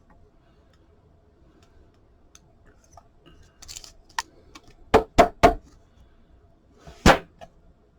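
Trading cards and plastic card holders handled on a table: a brief rustle, then a handful of sharp clicks and taps, three close together and one more near the end.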